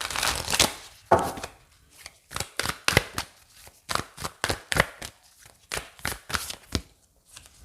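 A tarot deck being shuffled and handled: a run of sharp, irregular card slaps and taps, a few a second, with a short pause early on.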